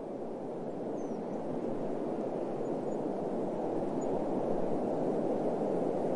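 Low, steady rush of wind, swelling slowly, with a few faint, short, high chirps over it.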